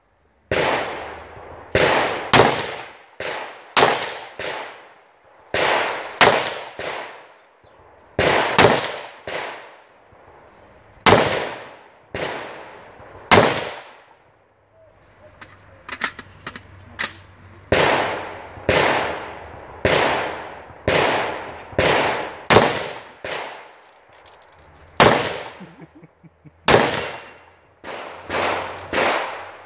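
Gunshots fired singly at an irregular pace, about thirty in all with a brief lull midway. Each shot is sharp and trails off in an echo.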